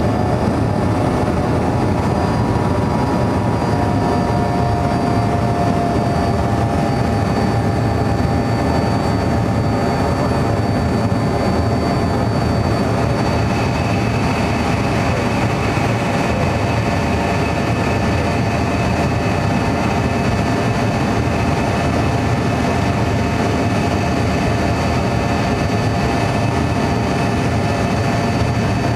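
Avro RJ85's Honeywell LF507 turbofan engines running at climb power, heard inside the cabin as a steady roar. Several steady whining tones sit over it, and a further, higher tone joins about halfway through.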